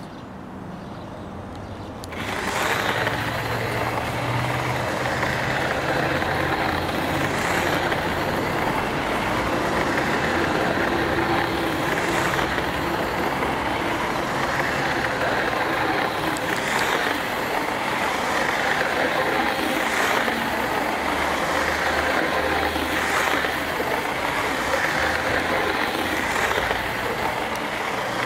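Lima H0-scale DB class 218 model diesel locomotive starting off about two seconds in, then running steadily round its oval of track: a steady electric-motor and gear whir with wheel rumble, with light clicks now and then.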